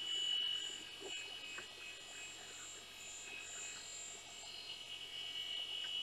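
A 486 IBM PC330 desktop running with a faint, steady high whine, over which its hard drive chatters softly and irregularly.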